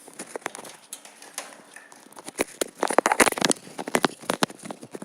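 Irregular sharp clicks and knocks from work on the steel bin floor, with a dense crackling run about three seconds in.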